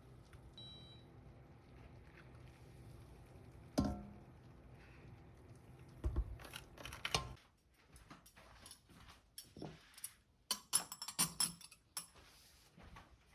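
Scattered clicks, clinks and knocks of household items being handled, with a sharp knock about four seconds in. A steady low hum under them stops about seven seconds in.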